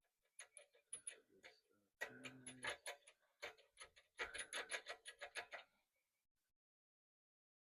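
Ratchet wrench clicking in quick runs as the carburetor mounting bolts on a mini bike engine are tightened: a few scattered clicks, then two longer spells of steady ratcheting.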